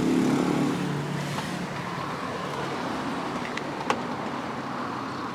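Car engine running with a low, steady hum that is strongest in the first second and then eases. A single sharp click comes about four seconds in.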